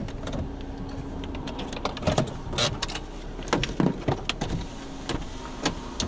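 Scattered small hailstones, about nickel size, striking the stopped vehicle as sharp irregular taps over a low steady hum.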